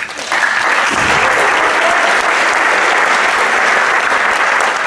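Audience applauding, a steady clapping that starts abruptly and holds at an even level.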